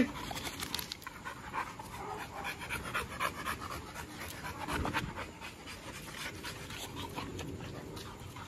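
A dog panting steadily with quick, rapid breaths.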